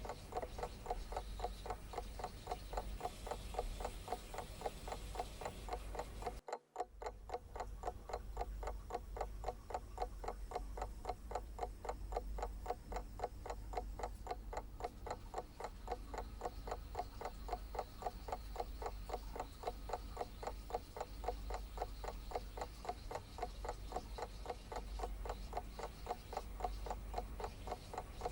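Clock ticking in a steady, even rhythm, with a brief break about six and a half seconds in.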